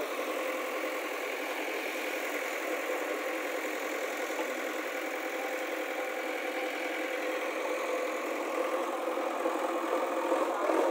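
Diesel engine of a JCB 3DX backhoe loader running steadily while the backhoe digs.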